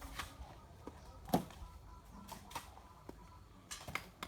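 Scattered light knocks and clicks, one sharper knock about a second and a half in and a few quick clicks near the end, over a faint low rumble.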